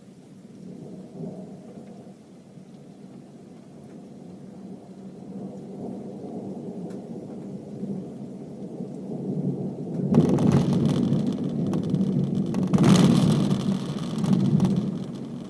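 Thunder: a low rumble that builds slowly, then breaks into a loud, sharp crash about ten seconds in, swells to its loudest a few seconds later and rolls away near the end.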